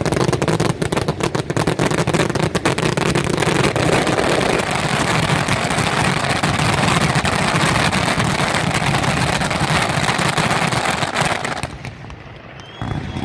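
Fireworks display going off in a dense, rapid run of bangs and crackle that merges into a continuous rumble. It dies away suddenly near the end.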